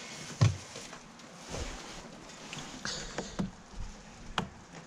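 A few separate knocks and clicks of objects being handled, with a brief hiss about three seconds in.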